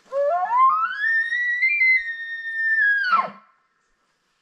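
Elk bugle call blown by a hunter: a single call that climbs in steps to a high, whistling note, holds it for about a second and a half, then drops sharply into a short low grunt. It is a locating bugle, meant to get a bull below to answer.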